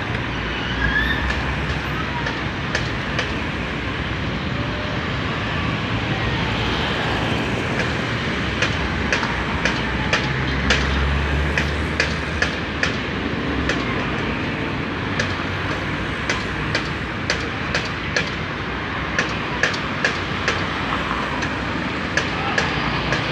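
Street traffic waiting at a light: idling vehicle engines make a steady low rumble that swells around the middle, with a run of sharp regular ticks, a little under two a second, from about a third of the way in.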